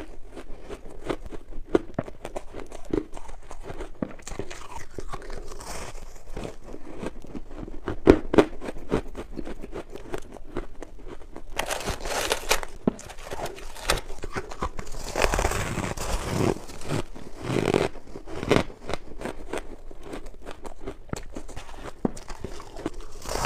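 Close-miked crunching and squeaking of powdery refrozen ice being bitten and chewed, along with fingers digging into and squeezing the packed ice. A dense run of crackles throughout, with louder stretches about twelve seconds in and again from about fifteen to eighteen seconds.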